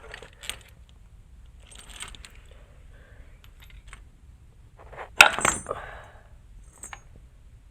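Metal tools and parts clinking against each other while a puller is worked on a driveshaft's carrier bearing. There are scattered light clicks, then one sharp ringing metal clank about five seconds in, the loudest sound.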